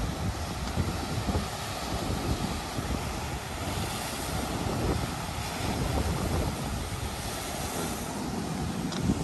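Ocean surf washing and crashing against lava rocks, under heavy wind buffeting the microphone with a gusty low rumble.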